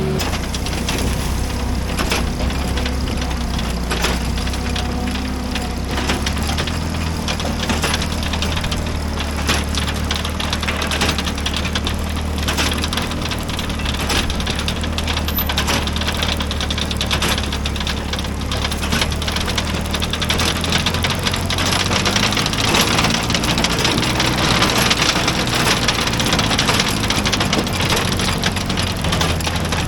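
Antique tractor engine running steadily, with a dense clatter of short knocks and rattles over it. The rattling grows brighter and busier about two-thirds of the way through.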